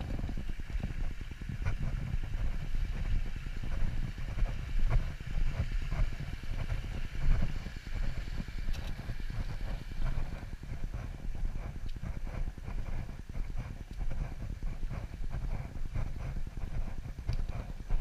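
Footsteps of a person walking on a dirt path in a steady rhythm, over a low, fluctuating rumble on the body-worn camera's microphone.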